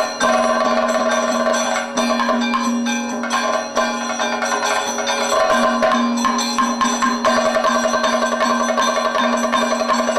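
Kathakali percussion accompaniment: chenda and maddalam drums beaten in quick, dense strokes, with small hand cymbals ringing over a steady held tone.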